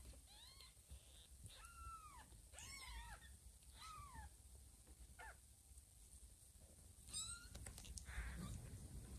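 Newborn kittens mewing: a series of short, high-pitched mews, each rising and falling in pitch, with a soft rustle near the end.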